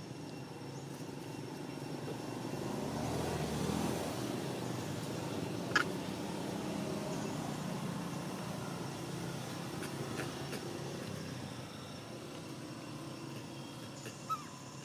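Engine of a passing vehicle, swelling to its loudest about three to four seconds in and slowly fading. A single sharp click comes about six seconds in, and a short high squeak near the end.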